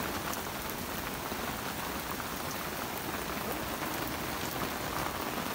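Heavy rain mixed with hail falling on a sailboat's deck and cockpit: a steady hiss with small sharp ticks of hailstones scattered throughout.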